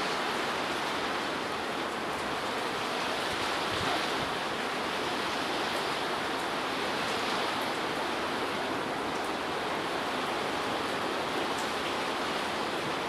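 Heavy rain and strong wind of a windstorm, a steady rushing noise with a few faint ticks of drops striking.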